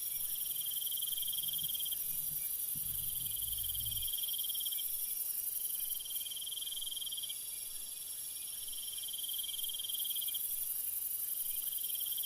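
Crickets chirping in repeated trills of about two seconds each, separated by short pauses, over a steady high-pitched insect hiss.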